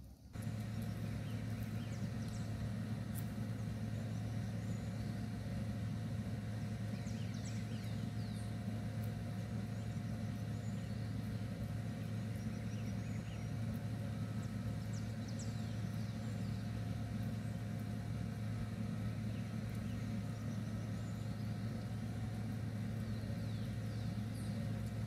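A steady low mechanical hum that starts abruptly and holds unchanged, with faint short high chirps now and then.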